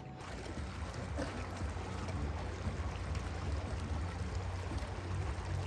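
Steady splashing and hiss of pool water, with a low rumble under it, as the remote-control shark toy swims.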